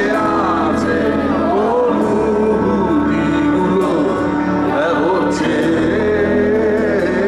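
Live progressive metal band playing loudly: electric guitar and drums with sustained, gliding melodic lines, and a male voice singing.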